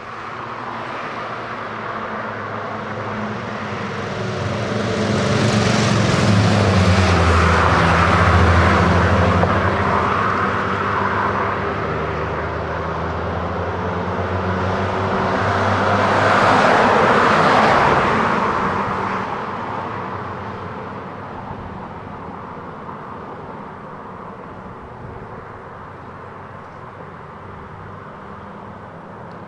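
DE 520 diesel-electric locomotive hauling a two-coach train at low speed, its engine giving a steady low drone. The sound swells louder twice, near the middle and again a few seconds later, then eases off toward the end.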